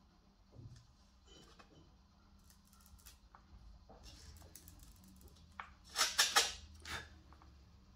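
Light scratching and handling sounds on a dried gourd being worked with a handheld pen tool, over a faint steady hum. About six seconds in come three or four louder, brief scrapes.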